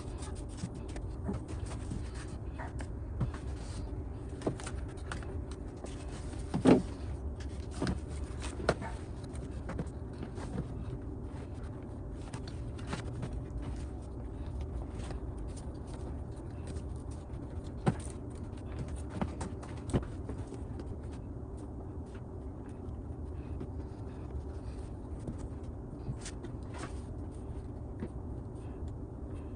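Scattered clicks and knocks of hands working on a car's rear door, over a steady low hum, with the loudest knock about seven seconds in.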